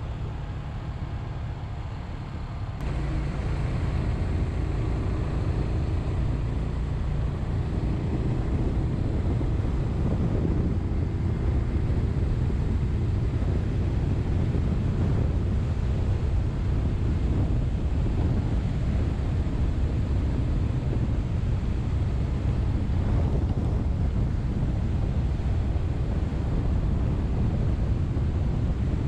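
Wind buffeting the microphone of a Suzuki Grasstracker Big Boy motorcycle on the move, with its single-cylinder engine running steadily underneath. The sound steps up suddenly about three seconds in and then stays loud and even.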